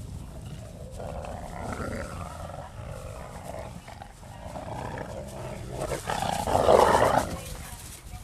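A pack of gray wolves growling in a close scuffle as they mob one wolf down onto the grass, the sound building to its loudest outburst about six to seven seconds in.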